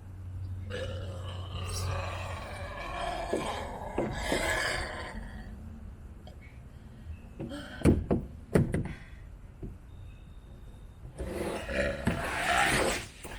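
Long, drawn-out burps: one starting about a second in and lasting about five seconds, another near the end. A few sharp, loud knocks come in between, around the middle.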